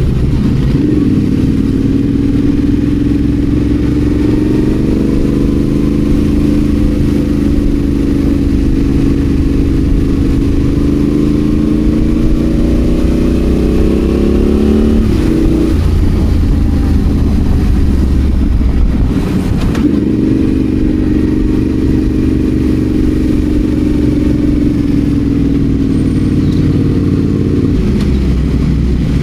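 Adventure motorcycle's engine running under way off road. Its note climbs slowly, drops sharply about halfway through as the revs fall, then climbs again.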